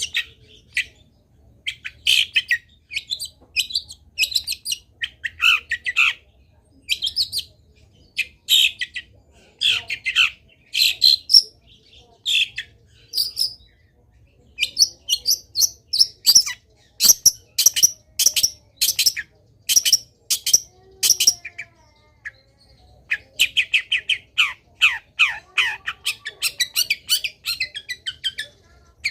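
A long-tailed shrike singing a fast, varied song of sharp chirps and chattering phrases, full of mimicked calls of other birds. A run of evenly repeated notes, about two a second, comes in the middle, and dense chatter with downward-sliding notes comes near the end.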